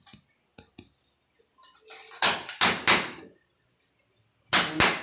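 Hammer striking the wooden door during lockset fitting: three sharp blows about two seconds in, then two more near the end, with a few faint clicks early on.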